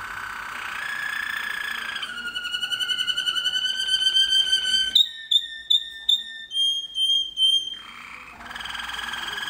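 Domestic song canary singing: long, even rolling trills for the first five seconds, then a run of short, clear separate notes from about five seconds in, the bell tours ('klok') this tutor bird is kept for, and another trill starting near the end.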